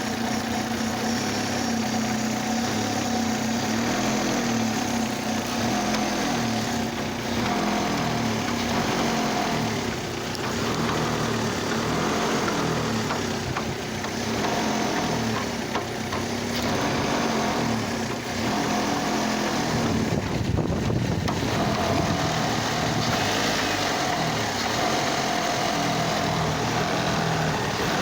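Oldsmobile Alero engine running with a cylinder misfire, its level swelling and dipping a few times.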